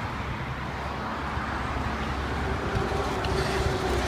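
Steady low vehicle rumble with an even hiss over it. A faint steady hum joins about two and a half seconds in.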